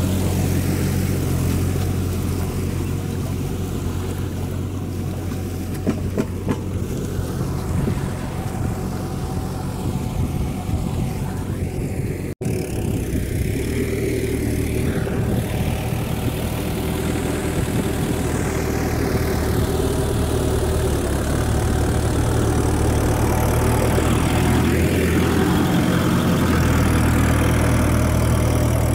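Swaraj 843 XM tractor's three-cylinder diesel engine running steadily while pulling a rotavator through a flooded paddy field. The sound cuts out for an instant about halfway through, and the engine note grows stronger over the last few seconds.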